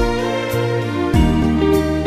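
Instrumental introduction of a Sinhala song: sustained chords over a bass line, with soft drum hits. There is no singing yet.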